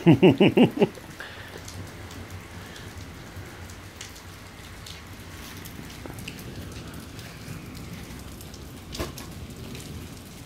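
Steady hiss of heavy storm rain. At the very start a voice gives five quick, loud, laugh-like syllables, and there is a single knock about nine seconds in.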